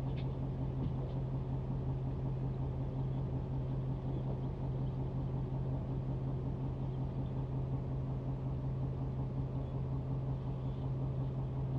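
Fishing boat's engine running steadily at low speed, a constant low drone.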